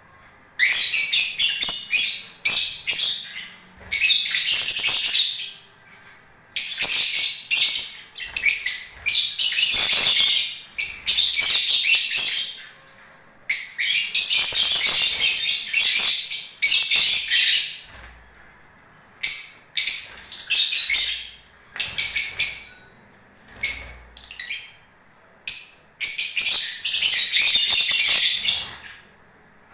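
Lovebirds singing during breeding season: high-pitched, chattering twitter that comes in bursts of a second to a few seconds, with short pauses between.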